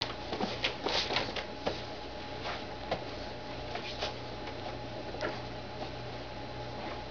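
Leather English saddles being handled and shifted on a lap. A cluster of small knocks and rustles comes in the first second and a half, then a few scattered clicks, over a steady low hum.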